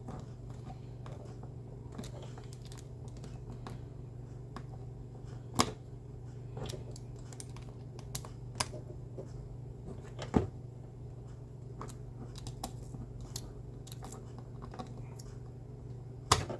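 Scattered light clicks and taps of small screws and metal mounting plates being handled and tightened onto a CPU cooler's plastic bracket, with a few sharper clicks spread through. A steady low hum runs underneath.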